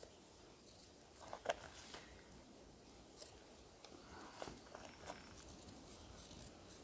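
Mostly quiet, with a few sparse clicks and light crunches of a large knife blade cutting into green hornbeam. The sharpest click comes about a second and a half in, and a short cluster follows a little after four seconds.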